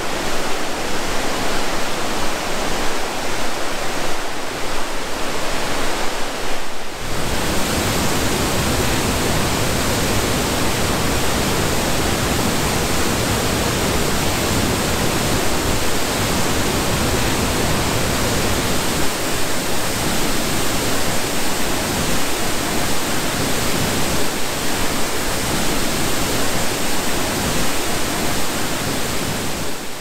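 Waterfall pouring steadily, a loud continuous rush of falling water, running high after a big storm. About seven seconds in the rush becomes fuller and deeper, heard close to the foot of the falls where the water plunges into its pool.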